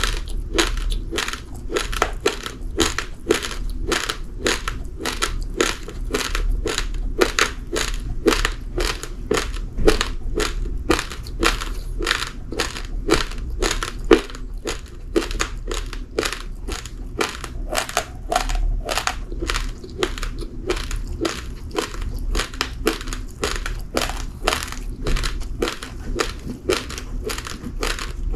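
Close-up chewing of raw, uncooked rice grains: a steady train of sharp crunches, about three a second.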